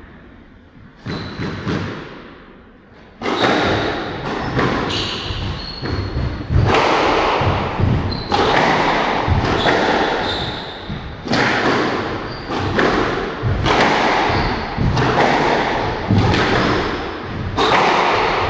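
A squash rally: the ball is struck by rackets and smacks against the court walls again and again, a few seconds in and then without a break, each hit echoing in the hall.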